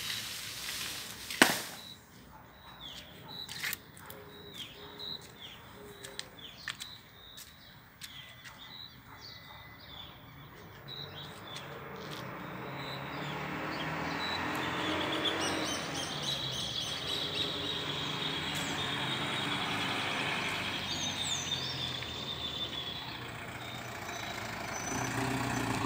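Small birds chirping with scattered light clicks, after one sharp knock about a second in. From about twelve seconds a motor vehicle's engine grows louder and then runs steadily.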